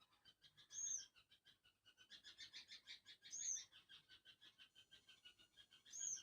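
Faint animal calls: a high arched chirp repeating about every two and a half seconds over a fast, steady run of short chirping notes.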